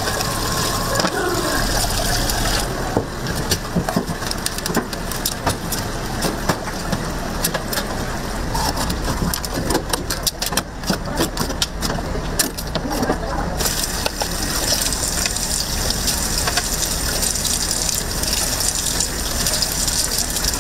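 Running, gushing water with scattered sharp clicks and knocks of shellfish and shells being handled.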